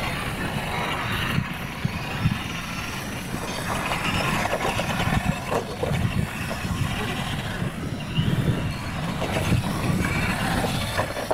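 Radio-controlled scale trucks racing over a dirt course and wooden ramps: an uneven running rumble with scattered knocks as they hit the ramps and rails.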